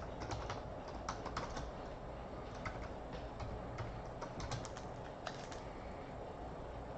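Typing on a computer keyboard: irregular clicks of the keys, some in quick clusters.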